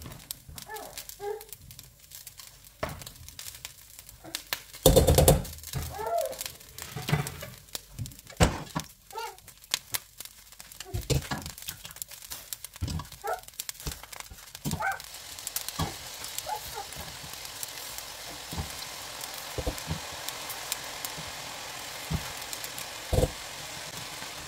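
A serving spoon knocking and scraping against stainless steel pots as meat in sauce is ladled onto rice: irregular clinks and taps, one louder clank about five seconds in. About halfway through, a steady hiss sets in under the knocks.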